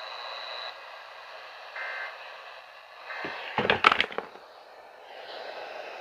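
Radio receiver hiss right after a weather alert message ends, with two short bursts of data tone, the EAS end-of-message signal. A loud crackle of static comes a little past halfway.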